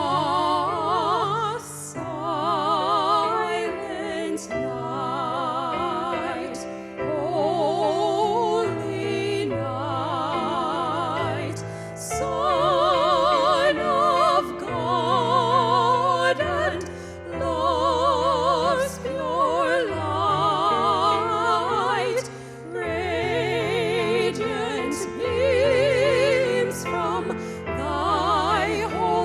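Classical-style live music: a melody with wide vibrato, in phrases of a few seconds, over sustained low accompaniment.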